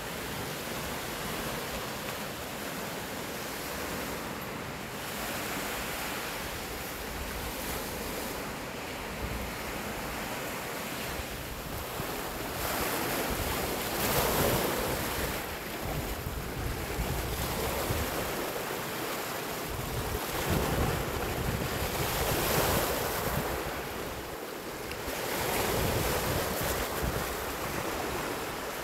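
Lake Superior waves washing up onto a pebble beach, the surf swelling louder every few seconds, with wind buffeting the microphone.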